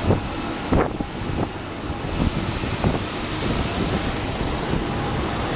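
Wind buffeting the handheld camera's microphone over a steady rushing background noise, with a few irregular short thumps.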